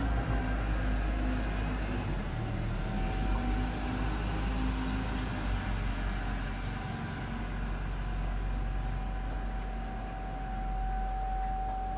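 Outdoor warning siren sounding its steady test tone, held on one pitch and growing louder near the end. A road vehicle's engine runs close by through the first half, louder than the siren.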